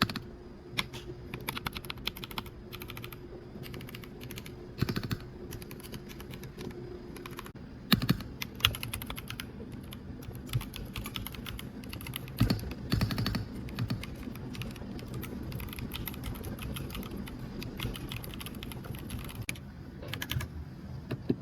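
Typing on a keyboard fitted with retro-style Russian-legend keycaps: a continuous run of irregular key clicks, with a few louder flurries of fast strokes.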